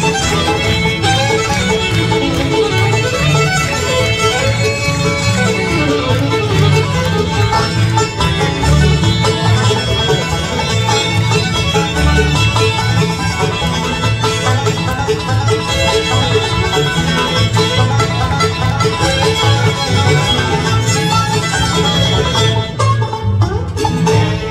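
Live acoustic bluegrass band playing an instrumental tune. A fiddle leads over banjo rolls, strummed acoustic guitars and an upright bass keeping a steady beat.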